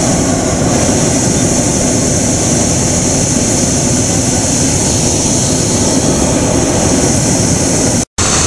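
Hot air balloon's propane burner firing overhead in a long, steady, loud blast.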